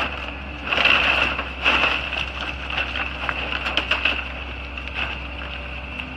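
CASE tracked excavator demolishing a house: timber splintering and debris crashing down, loudest about a second in and again near two seconds, with smaller cracks and clatter after, over the excavator's steady engine hum.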